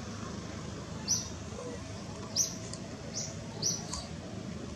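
Short high-pitched animal chirps, about four of them roughly a second apart, over a steady low background hiss.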